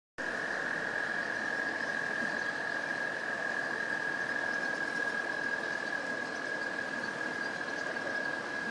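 Camera drone hovering: its motors and propellers give a steady high whine over a constant hiss.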